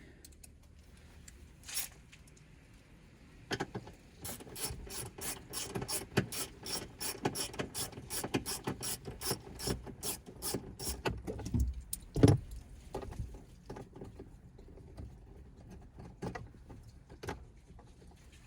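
Ratchet wrench with a 7mm socket clicking steadily, about three clicks a second, as it backs out screws in the truck's interior trim, followed by a single louder knock and a few scattered clicks.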